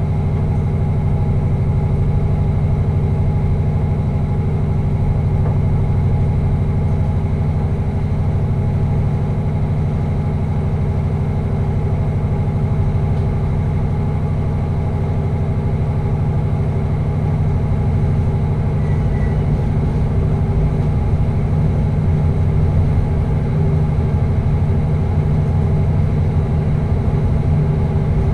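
Passenger train running, heard from inside the driving cab: a steady low drone with a few constant tones above it.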